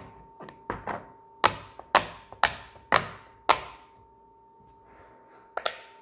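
Silicone pop-it fidget toy having its bubbles pushed through one at a time, each giving a sharp pop. The loudest pops come about two a second in the middle, with a quiet gap before two more near the end.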